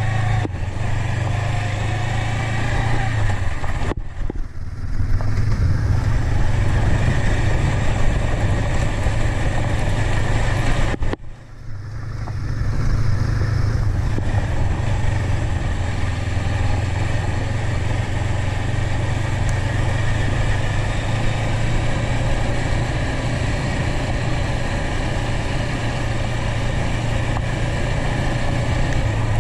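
Honda CB500X's parallel-twin engine running steadily as the motorcycle is ridden along a dirt track, under a constant rush of wind and tyre noise. The sound drops away briefly twice, about four and eleven seconds in.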